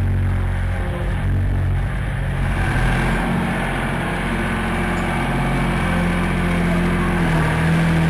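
Veper model S skid steer loader's engine running steadily, its note shifting in pitch a few times as the machine works.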